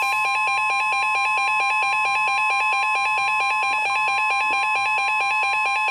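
Weather radio alert from a Reecom R-1630 and a Midland WR120: the steady 1050 Hz warning alarm tone with a fast electronic beeping over it. This signals an incoming severe thunderstorm warning.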